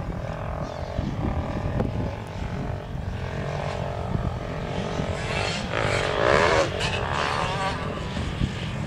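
Distant motocross bike engine revving as it rides across the track, its pitch rising and falling, loudest about six seconds in, over a steady low rumble.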